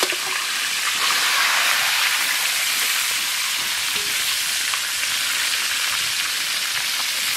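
Carp pieces and heads frying in hot oil in a large aluminium kadai, a steady sizzle; the heads are fried through.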